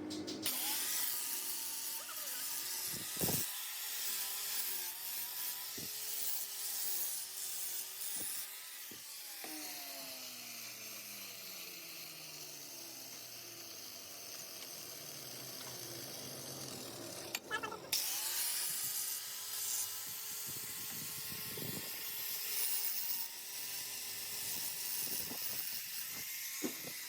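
Lathe running with a steady hum and hiss; about nine seconds in it winds down with a falling pitch, and about eighteen seconds in it starts up again and comes back up to speed.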